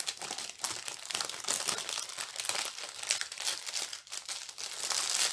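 Small plastic bags of diamond painting drills crinkling and rustling as they are handled and packed back into the kit, a continuous run of quick irregular crackles.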